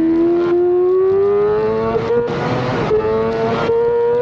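Yamaha YZF-R6 race bike's inline-four engine running at high revs, heard from a camera on the front of the bike. Its whine climbs steadily over the first two seconds, then holds high. A rushing hiss breaks in twice, about two and three and a half seconds in.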